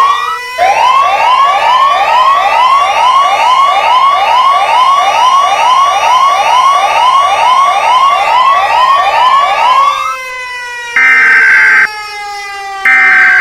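Emergency alert system alarm: a rapidly repeating rising siren wail, about two sweeps a second over held tones, which about ten seconds in gives way to long, steady high beeps, about a second on and a second off, over a slowly falling tone.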